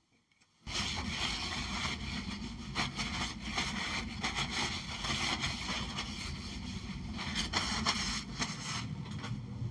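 Cyrrtec Profiturn 2865GC metal lathe switched on under a second in, its geared headstock then running steadily at about 2000 rpm, freshly filled with ISO 46 bearing oil.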